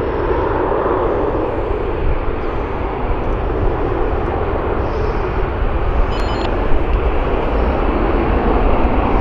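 Airbus A320-232 climbing out after takeoff, its twin IAE V2500 turbofans giving a steady jet roar with a deep rumble.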